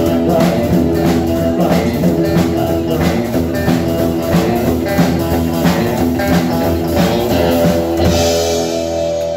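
Live band playing an instrumental passage: strummed acoustic guitar, electric guitar, upright bass and a drum kit keeping a steady beat. About eight seconds in the beat stops and a ringing cymbal and held chord close the song.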